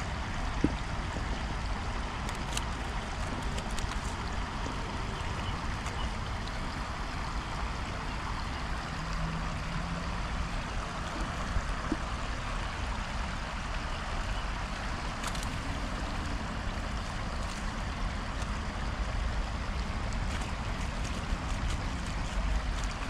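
Shallow river rushing steadily over stones, with a few sharp clicks on top.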